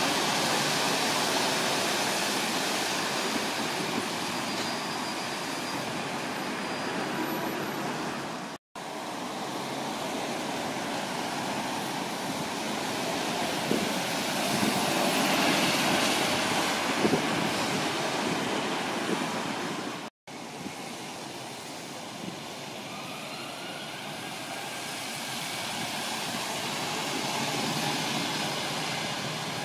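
Street traffic with double-decker buses pulling past close by: a steady noise of engines and tyres that swells as a bus goes by in the middle. The sound drops out briefly twice at edits.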